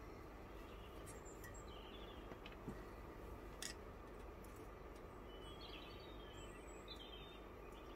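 Quiet, with a few light clicks as small valve collets are worked onto a valve stem with a magnetic pick-up tool, and faint bird chirps in the background.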